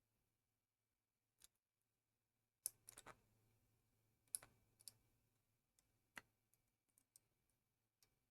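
Faint, scattered sharp clicks and snaps of pliers gripping and breaking printed-in support material off a 3D-printed plastic part, about eight in all, the loudest two about three and four and a half seconds in.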